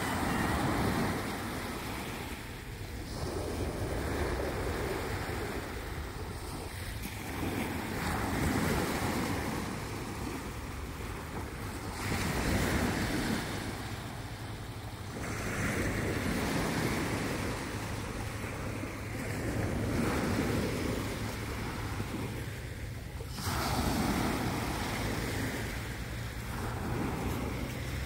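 Small sea waves breaking and washing up a sandy beach, the surf noise swelling and fading about every four seconds, over a steady low rumble.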